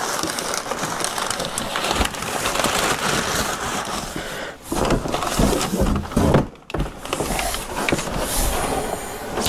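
Crumpled brown kraft packing paper crinkling and rustling as it is pulled out of a cardboard shipping box, with cardboard scraping and knocking as a boxed helmet is lifted out near the end.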